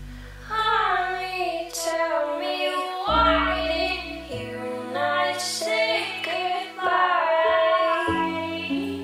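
Song with a high female singing voice over long held low bass notes; the voice comes in about half a second in.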